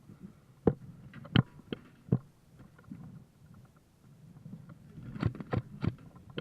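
Airsoft guns firing single shots as sharp cracks: four spaced shots in the first two seconds, then a quicker run of three about five seconds in.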